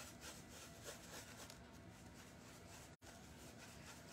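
Near silence, with faint soft scrapes of a paintbrush working acrylic paint on a paper-plate palette.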